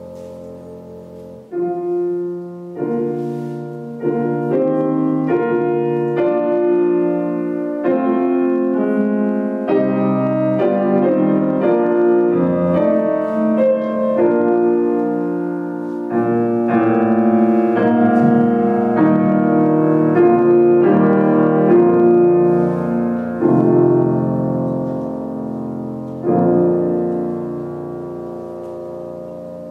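Grand piano played solo in a slow classical piece of sustained, chromatic chords. The chords come in strongly about a second and a half in, are loudest in the middle, and die away toward the end.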